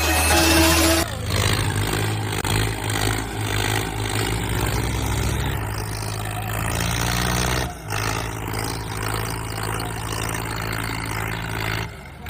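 Diesel engines of a Swaraj 855 and a Solis tractor running hard under full load while pulling against each other in a tractor tug-of-war: a steady low engine drone, dipping briefly about eight seconds in and again near the end. A short intro sound effect fills the first second.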